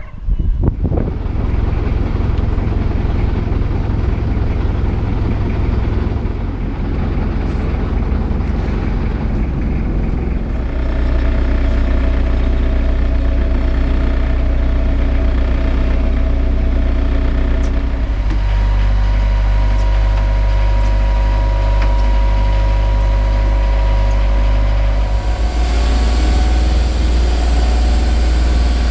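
Small fishing boat's engine running steadily as the boat gets under way, heard from inside the wheelhouse. Its note shifts a few times, deepening about two-thirds of the way through.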